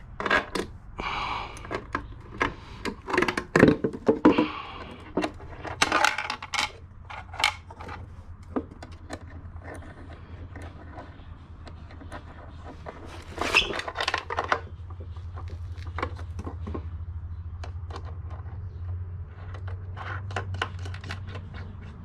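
Metal parts clinking, scraping and knocking in scattered bursts as a no-weld turbo oil return bung is fitted by hand, with a steady low hum underneath.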